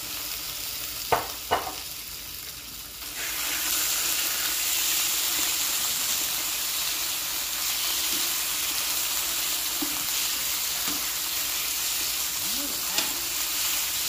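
Chunks of marinated chicken sizzling in hot olive oil in a skillet while a slotted spatula stirs and spreads them. There are two sharp knocks about a second in, the sizzle grows louder about three seconds in, and the spatula scrapes and taps on the pan now and then.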